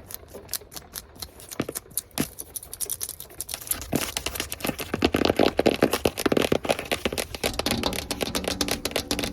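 Long fingernails tapping and scratching rapidly and hard, a fast stream of small clicks. It is light at first and grows louder and denser about four seconds in.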